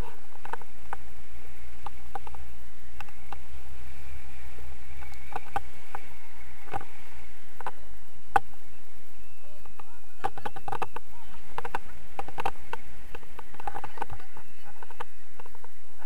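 Steady wind rushing over an action camera's microphone in paraglider flight, with scattered short clicks and knocks from the camera housing and its pole.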